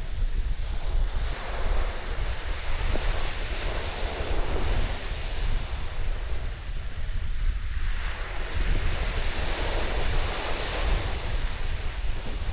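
Surf washing onto a sandy beach under strong wind, with wind buffeting the microphone as a constant low rumble. The wash swells twice, a few seconds in and again past the middle.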